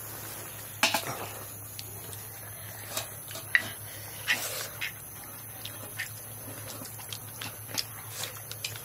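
People eating cow-leg nihari by hand: scattered short slurps, sucks and chewing sounds from gnawing the cow-trotter bones, over a steady low hum.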